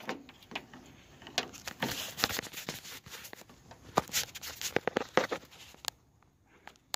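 Irregular clicks, taps and rustles of hands handling a plastic OBD2 connector and a handheld scan tool with its cable. The sounds stop about six seconds in.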